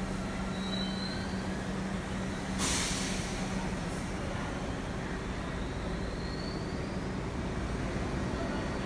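R62 subway train at the terminal platform, running with a steady low hum, and a short, sharp burst of air hiss from its brakes about two and a half seconds in.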